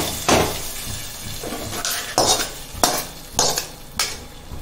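Steel ladle scraping and knocking against a kadai as the hot tempering of dried red chillies is emptied into a pressure cooker of kootu, about seven sharp knocks, over a fading sizzle.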